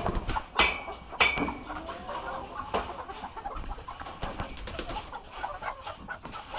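A flock of laying hens clucking, with two sharp, loud squawks in the first second and a half followed by a steady scatter of softer clucks.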